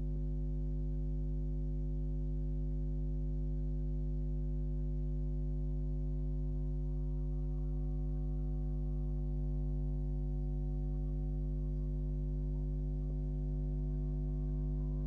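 Steady electrical hum, a low buzz with a stack of evenly spaced overtones that does not change.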